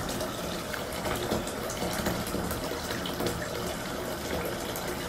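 Steady water noise in a filled bathtub, with a few faint small splashes as a hand moves in the foamy bath water.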